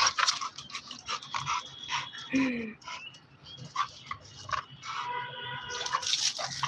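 American bully dog whimpering as it is splashed with water: a short falling yelp about two and a half seconds in, and a longer high whine near the end.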